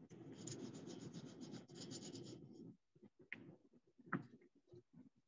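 Paintbrush rubbing back and forth on a ceramic teapot's base: a faint scrubbing for about two and a half seconds, then a few light taps.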